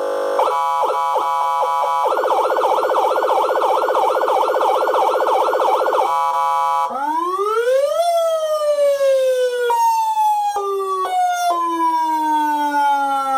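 Dual-tone electronic siren through a 400-watt siren amplifier and speaker, cycling through its tones: a fast warbling yelp of about three to four sweeps a second, a brief steady tone, then a wail that rises and falls slowly in steps, with a second lower tone sounding alongside near the end.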